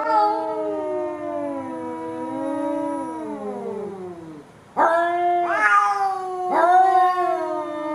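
Domestic cat yowling: one long drawn-out howl that falls in pitch toward its end, then, after a short pause, three shorter yowls in quick succession.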